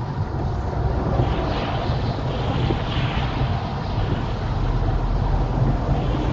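Wet-road driving noise heard from inside a small car's cabin: a steady low rumble of tyres and engine under the hiss of rain and spray on the windscreen, with a few brief swells of louder hiss.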